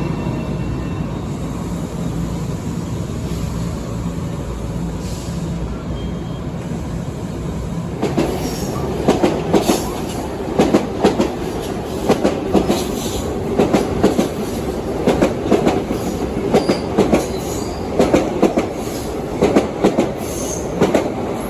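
LIRR M7 electric multiple-unit train running past with a steady low rumble; from about eight seconds in its wheels click sharply over the rail joints, mostly in pairs, about one pair a second.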